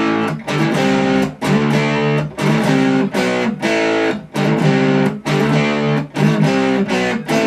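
Fender Jazzmaster HH electric guitar played with a distorted sound, its humbuckers split to single coil and the pickup selector in the middle position. A repeated chord riff is strummed, each chord ringing for about half a second to a second before a brief stop.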